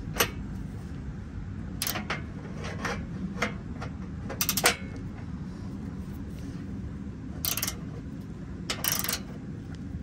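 Scattered clicks and knocks, several in quick little clusters, from a ratcheting wrench and the tow strap's mounting hardware being worked as its bolt is set straight and tightened, over a steady low rumble.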